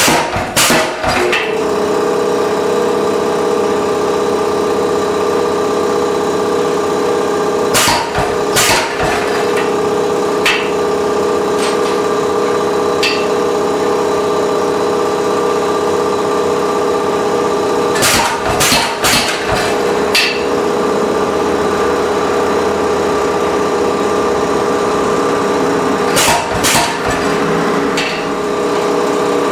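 MZ75 air power hammer delivering short groups of heavy blows onto a top tool on red-hot steel: a few strikes near the start, a couple around a quarter of the way in, a run of about five past the middle and three more near the end. A steady machine hum runs underneath.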